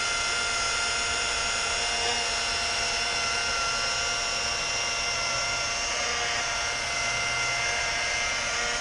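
Makita electric rotary buffer running at speed with its pad pressed against window glass, buffing stains off: a steady, even motor whine with several high tones.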